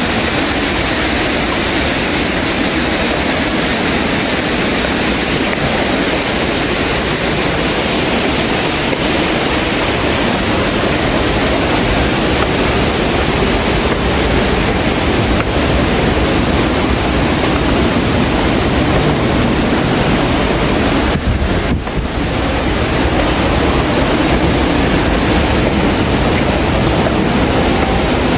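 Waterfall rushing, a loud steady roar of falling water, briefly dropping for a moment about three quarters of the way through.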